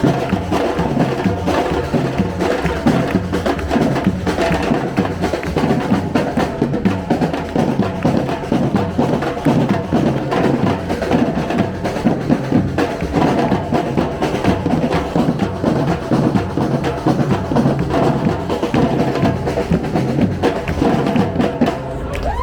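A live street band playing a tune over busy drums and percussion, stopping right at the end.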